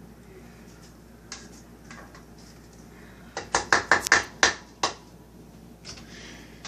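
A quick run of about eight sharp clicks and knocks lasting a second and a half, about halfway through, after a couple of faint taps: kitchen utensils knocking against a bowl or pan.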